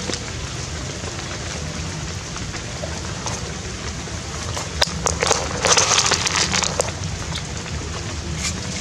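Steady patter of rain, with a louder burst of crackling noise and sharp clicks about five to seven seconds in.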